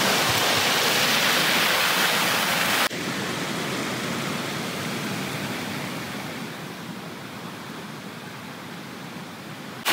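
Water rushing steadily over a dam spillway. About three seconds in it drops suddenly to a softer, steady rushing that slowly fades lower.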